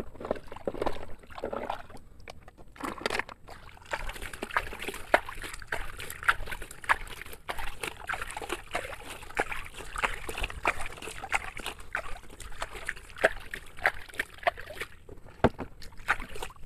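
Water sloshing and splashing as a toy sand dump truck is washed clean by hand, with many short splashes coming thick and fast from a few seconds in.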